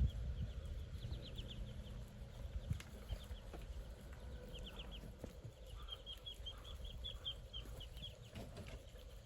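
Muscovy ducklings peeping: quick series of short, high chirps, with a longer, evenly spaced run of peeps from about six seconds in.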